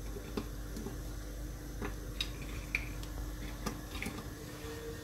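Quiet kitchen room tone with a steady low hum, broken by a few faint, scattered clicks and taps as pieces of chocolate are handled and laid on puff pastry.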